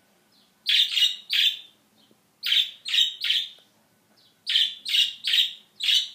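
Budgerigar calling: loud, sharp chirps in quick runs, three near the start, three in the middle and five near the end, about a dozen in all.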